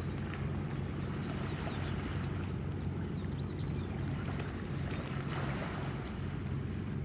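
Steady low drone of a ship's engine carried across the water, with wind noise and scattered faint high chirps.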